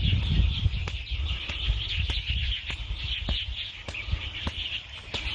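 Birds chirping steadily and densely in the background, with a low rumble and a few scattered sharp ticks.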